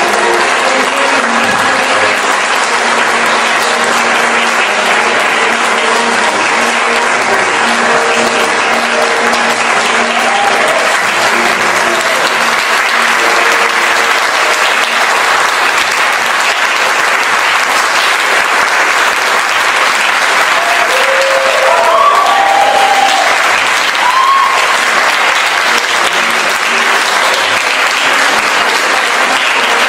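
A theatre audience applauding steadily through a curtain call, with music playing underneath. A few short calls rise over the clapping about two-thirds of the way through.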